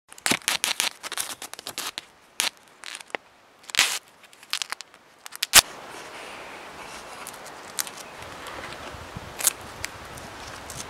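Rapid, irregular crackles and clicks of camera gear being handled close to the microphone, ending about five seconds in with one loud click. After that, a steady outdoor background hiss with a few scattered clicks.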